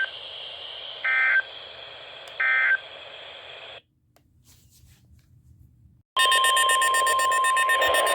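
Weather radio broadcast: three short, buzzy digital data bursts about 1.3 s apart (the EAS end-of-message code) over radio hiss. The hiss cuts off to dead air at about four seconds. About six seconds in, a loud, steady NOAA Weather Radio warning alarm tone near 1 kHz starts, with a rapid beeping pattern layered over it.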